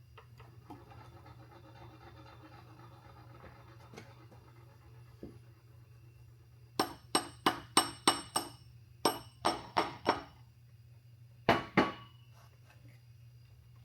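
Hammer taps on metal transmission parts: three quick runs of sharp strikes, about six, then four, then two, each ringing briefly. A steady low hum runs underneath.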